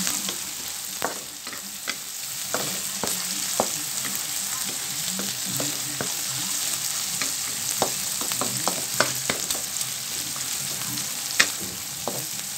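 Shrimp, garlic, onion and ginger sizzling in hot oil in a wok as they are sautéed, with a spatula stirring and scraping. The spatula knocks sharply against the pan at irregular moments, loudest near the end.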